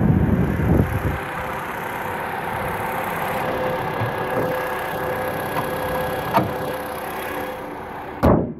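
A 2014 Vauxhall Astra J's engine running steadily at an even idle-like speed, with an uneven low rumble in the first second. A single short loud knock comes near the end.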